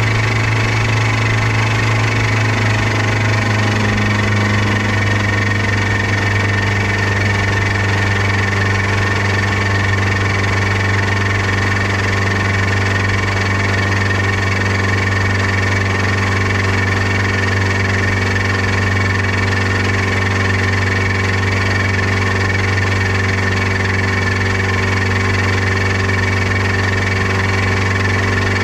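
New outboard motor running steadily at a constant speed during break-in, a low hum with a harsher higher-pitched tone over it. This is the abnormal noise the owner calls gawd awful, the sign of an issue with the new motor.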